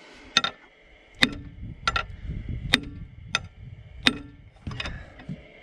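Seven sharp metal-on-metal strikes, about one every 0.7 s, each ringing briefly: a steel bar driven up against a rust-seized piston in a Cat 120 grader's engine block to knock it loose.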